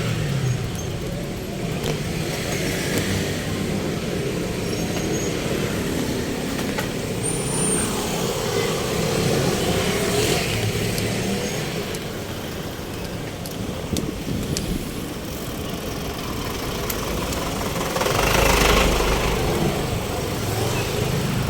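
Road traffic: motor vehicles running past steadily, with a louder, heavier pass and a deep rumble near the end.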